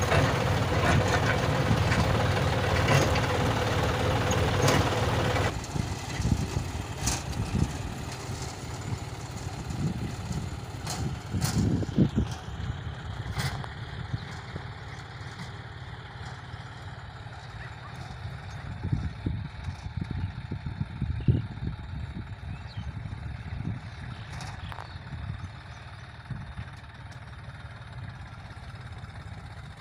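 John Deere 5105 tractor's three-cylinder diesel engine running under load while pulling a seed-drill cultivator. It is loud and close with a steady hum for the first five seconds or so, then cuts suddenly to a quieter, more distant low rumble with a few scattered clicks.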